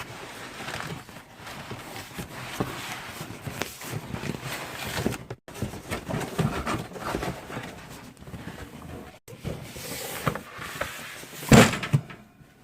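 Cardboard boxes being handled: an inner box scraping and rustling against the outer shipping box as it is worked out, with a loud knock about eleven and a half seconds in.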